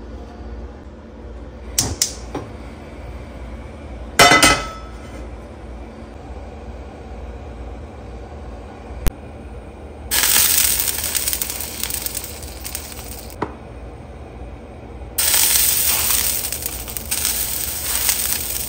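A carbon steel frying pan is set down on a gas stove's grate: a few light knocks, then a loud metal clank that rings briefly. Later there is one sharp click, then two stretches of loud hiss a few seconds each.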